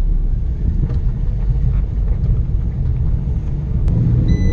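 Fiat 500 heard from inside the cabin as it drives off, a steady low rumble of engine and road. About four seconds in there is a click, and then a steady high warning tone starts: the seatbelt reminder, as the driver has not buckled up.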